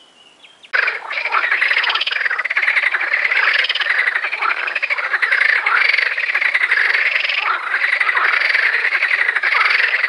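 Many frogs croaking together in a loud, dense chorus, cutting in abruptly about a second in.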